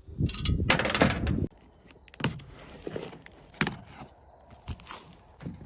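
Packaging and metal parts being handled: about a second and a half of dense rustling and crackling, then scattered knocks and clinks.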